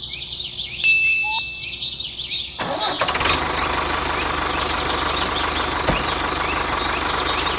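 Birds chirping. About two and a half seconds in, an engine starts up and runs steadily with a fast low pulsing, while the birds carry on.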